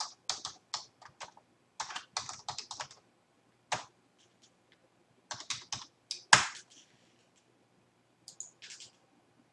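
Typing on a computer keyboard: quick runs of keystrokes with short pauses. The hardest strike comes a little over six seconds in, and a few quieter clicks follow near the end.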